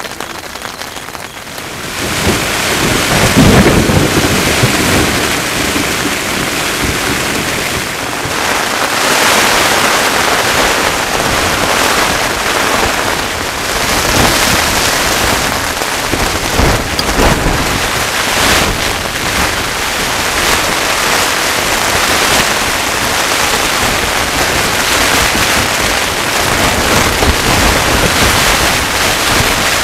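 Heavy rain falling on a nylon tent fly, heard from inside the tent, loud and steady. A rumble of thunder swells about two to four seconds in.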